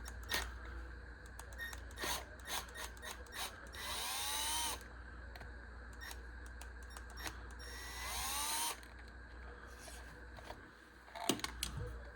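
Small cordless power driver spinning up in two short bursts, about four and eight seconds in, each with a rising whine, and sharp clicks of tool and parts being handled between them.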